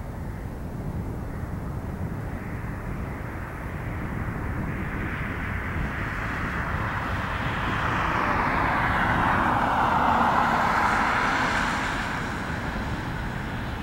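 The IAE V2500 turbofan engines of an Airbus A320 at takeoff power as it climbs away after liftoff: a steady jet engine noise that swells to its loudest about two-thirds of the way through, then eases off near the end.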